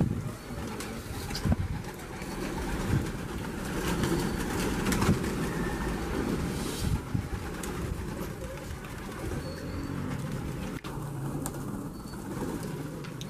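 A flock of domestic pigeons cooing, with wings flapping as birds come down to land, and a few short sharp knocks among them.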